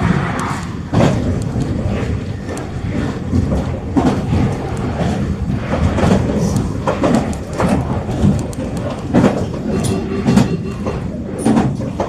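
Meitetsu Seto Line electric train running, heard from inside the car at the front, a steady rumble with repeated clacks of the wheels over rail joints.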